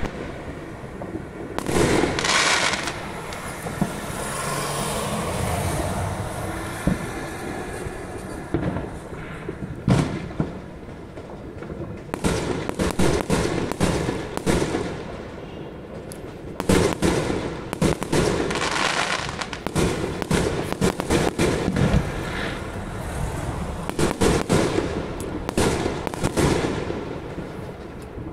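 Fireworks going off: sharp bangs and bouts of rapid crackling from bursting aerial shells, with a stretch of steady hissing a few seconds in.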